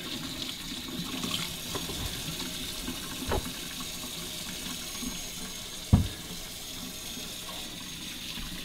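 Kitchen tap running steadily into a sink as potatoes are washed under it, with a couple of knocks, the loudest about six seconds in.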